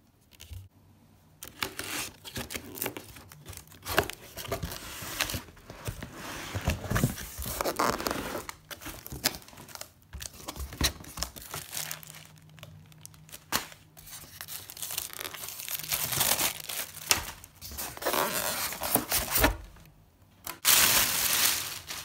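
Speaker packaging being unwrapped: irregular tearing and crinkling of wrapping material, in uneven bursts with short pauses, the loudest burst near the end.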